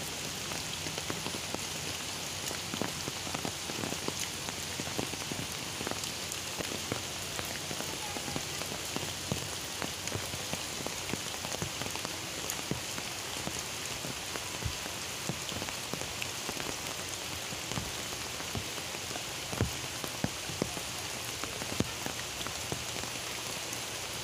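Heavy rain falling steadily, with many drops striking the fabric of an umbrella held overhead as a dense stream of small taps. A few louder single drips stand out in the last few seconds.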